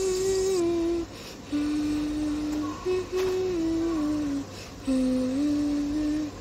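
A person humming a slow tune: long held notes that step down in pitch, in several short phrases with brief breaks between them.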